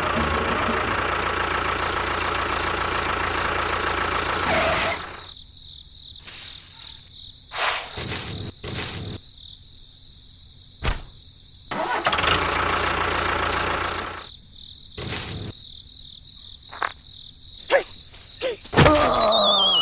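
A small motor runs steadily and cuts out about five seconds in, leaving a steady high cricket-like chirp and a few sharp knocks. The motor runs again briefly midway, and near the end a whistle falls in pitch.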